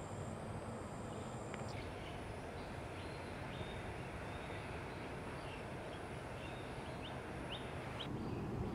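Outdoor ambience: a steady low rumble of background noise with faint, brief high chirps from small birds scattered through it. The background changes abruptly about two seconds in and again near the end.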